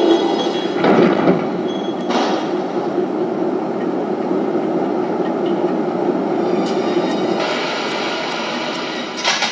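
Steady machinery rumble of a ship's engine room, broken by sharp bangs about a second in, at about two seconds and again near the end.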